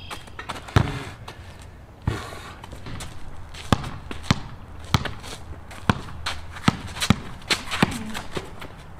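Basketball dribbled on a concrete court: a run of sharp bounces at an uneven pace, about one every half second.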